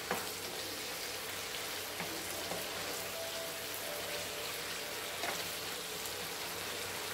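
Chicken curry sizzling gently in the pan, a steady hiss of frying as the oil separates from the gravy: the sign that the dish is done.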